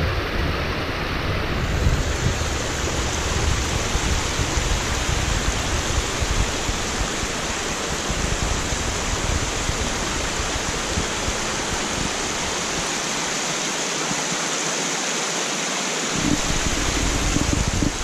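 Runoff water rushing steadily down a rocky hillside channel, with a low rumble underneath that fades out for a few seconds near the end.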